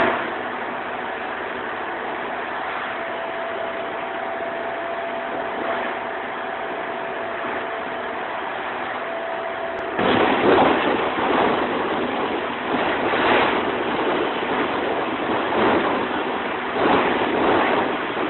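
Concrete-pumping machinery running steadily with a faint steady whine. About halfway through, a loud rushing hiss of sprayed shotcrete starts abruptly and keeps rising and falling as the nozzle blasts concrete onto the tunnel wall.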